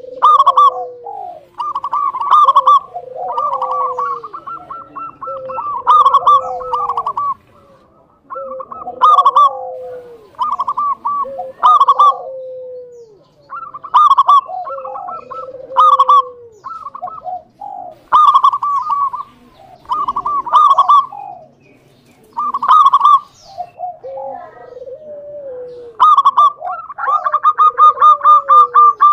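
Zebra dove (perkutut) cooing: repeated phrases of rapid staccato notes, each closing with a lower falling note, about one phrase every two seconds. Near the end the bird runs into a longer unbroken string of notes.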